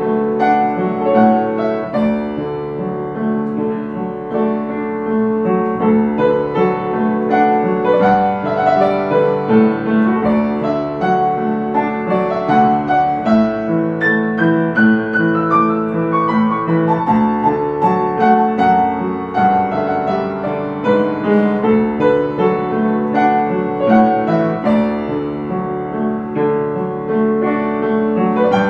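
Yamaha upright piano playing a slow, lyrical melody over chordal accompaniment in the key of D. About halfway through, a descending run of notes leads back into the melody.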